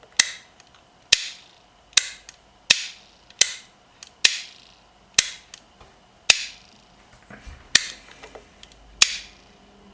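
Snap-action mechanism of an opened pressure switch clicking as its pressure plate is pushed and released by hand: about ten sharp clicks, roughly one a second, some with a short metallic ring. Each click is the contacts snapping open or shut in one fast jump, which the switch is built to do so that no arc forms between the contacts.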